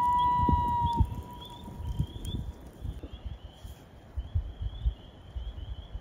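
Common loon wailing: one long note that slides up and holds for about a second, then fades away. A steady chorus of short, high chirps runs behind it.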